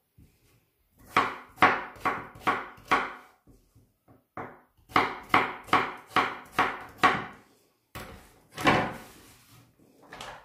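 Kitchen knife chopping potatoes into small cubes on a wooden cutting board: two runs of sharp knocks, about two to three a second, then a louder, longer knock near the end.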